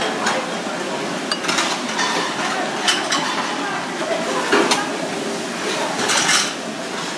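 Metal spoon clinking and scraping against a ceramic bowl while scooping rice and seaweed from broth: a scattering of short, light clinks.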